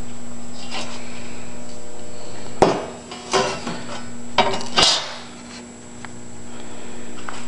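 A thin steel transmission valve body separator plate being handled on a paper-covered bench: a sharp metallic clack about two and a half seconds in, some rattling and paper rustle, then two more clacks near the five-second mark as the plate is laid down flat. A steady hum lies under it all.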